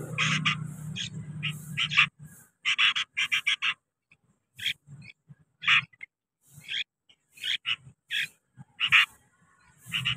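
Sooty-headed bulbuls chirping: short, sharp calls, some in quick runs of four or five and others spaced out singly. A steady low hum sounds under them for the first two seconds, then stops.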